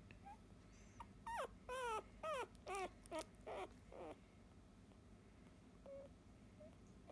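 Eight-day-old Labrador retriever puppy whimpering: about seven short, high squeaks in quick succession, each falling in pitch, then a faint one a couple of seconds later.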